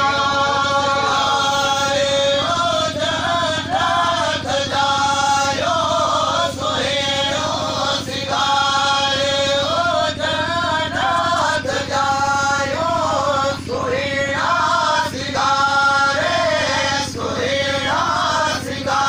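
Solo vocal chanting, amplified through a loudspeaker system: long held notes alternate with wavering, ornamented runs every few seconds, over a steady low hum.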